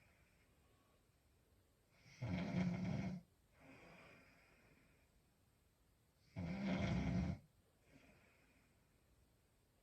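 A woman snoring in her sleep: two loud snores, each about a second long and about four seconds apart. Each is followed by a softer, breathy breath.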